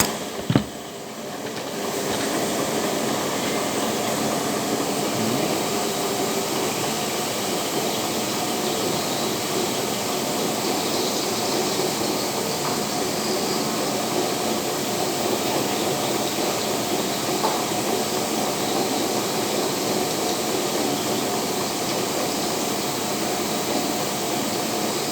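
Steady running noise of factory machinery, an even mechanical hiss and rumble with no clear rhythm. A sharp click comes about half a second in, and the noise dips briefly before settling back.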